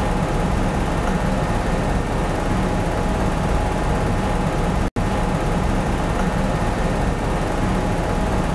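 Steady drone of a kitchen extractor hood's ventilation fan running, a low hum with a faint whistling tone above it. It cuts out for an instant about five seconds in.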